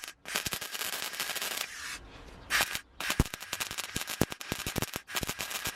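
Welding arc crackling and popping while tack-welding thin automotive sheet metal: a run of about a second and a half, a short pause, then a longer run of about three seconds.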